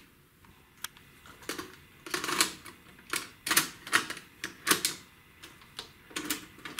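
Irregular mechanical clicks and clacks from the Philips FW68 mini system's buttons and tape-deck mechanism as playback is stopped and switched to another of its players, with short clusters of clicks about two to five seconds in and a last one near the end.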